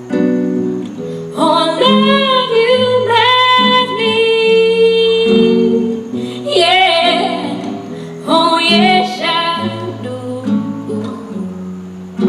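Live music: a woman sings long, bending held notes over a plucked guitar accompaniment.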